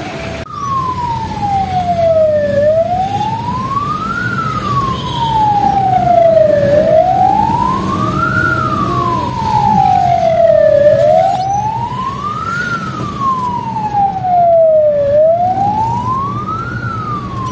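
Ambulance wail siren sweeping slowly down and up in pitch, about once every four seconds, over a steady low vehicle rumble.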